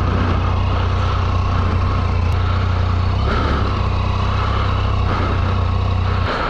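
Motorcycle engine idling with a steady low drone, which cuts off abruptly near the end.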